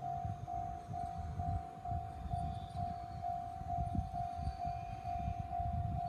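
Japanese railway level-crossing warning bell ringing a single tone over and over, about twice a second, signalling an approaching train.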